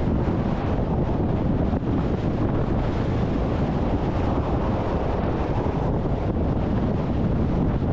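Strong wind buffeting the microphone: a steady, deep rushing noise.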